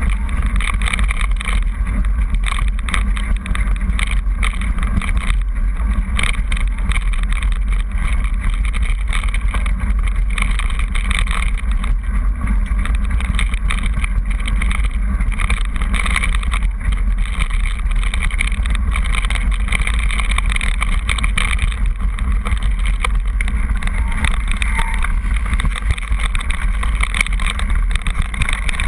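Mountain bike rolling fast down a loose gravel and stone track: tyres crunching and the bike rattling with many small clicks, under a steady low rumble of wind on the camera's microphone.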